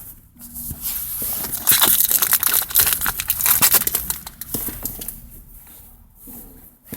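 Foil booster pack wrapper being torn open and crinkled by hand: a dense, rapid crackling, loudest in the middle and fading out over the last couple of seconds.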